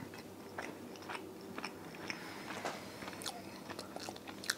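Close-miked chewing and mouth sounds of a person eating a chicken thigh, with soft scattered clicks throughout and one sharper click near the end.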